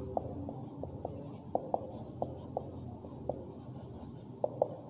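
Marker pen writing on a whiteboard: short, irregular squeaks and taps as the letters are formed, over a low steady hum.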